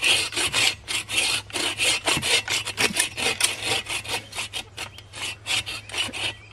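Folding bow saw cutting through a log, worked back and forth by two people in quick, even rasping strokes, several a second.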